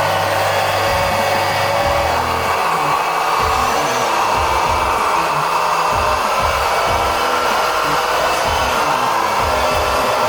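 Hydraulic pump motor of a radio-controlled Hitachi 135 model excavator, a steady whir as the hydraulics are worked.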